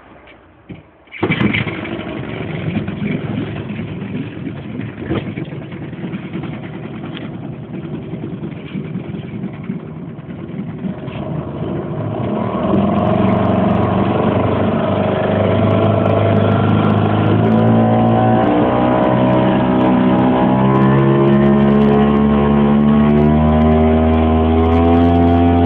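Yamaha 5 hp two-stroke, single-cylinder, liquid-cooled outboard motor running. It comes in loud suddenly about a second in and runs rough and uneven, then from about halfway it gets louder and its note climbs steadily as it speeds up.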